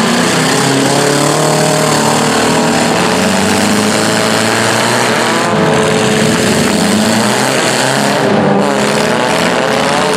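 Several demolition derby car engines running hard and revving, their pitches rising and falling over one another.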